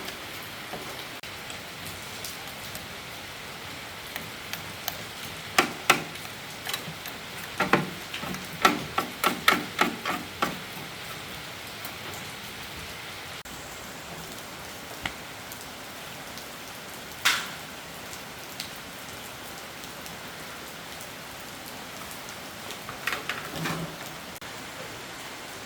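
Steady hiss of heavy rain, with sharp taps and knocks of small hard objects. A run of about a dozen taps, about two a second, comes around a quarter of the way in, one louder knock about two-thirds in, and a few more near the end.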